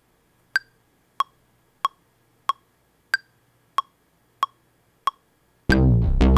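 Metronome count-in: eight even clicks, about one and a half a second, the first of every four higher-pitched. On the next downbeat, near the end, the u-he Zebra HZ 'Rolling Metal' synthesizer patch comes in loud and dense with a deep low end.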